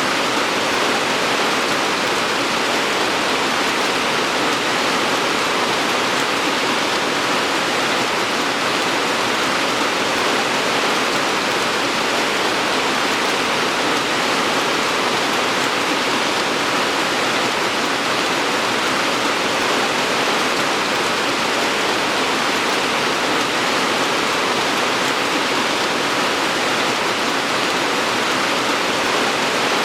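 Steady rain falling, an even, unchanging hiss with no separate drops standing out.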